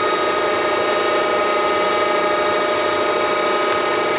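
Okamoto ACC-1224DX automatic surface grinder running without cutting, its hydraulic pump and wheel spindle making a steady hum with a few constant tones.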